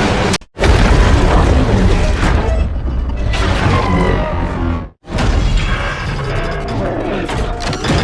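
Loud, layered film sound effects with a heavy low rumble, played as three spliced clips that cut off abruptly about half a second in and again about five seconds in.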